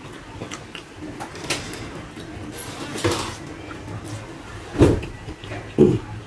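Close-miked mukbang eating by hand: chewing and mouth smacking with many small wet clicks, a longer noisy stretch about three seconds in, and two loud dull thumps near the end.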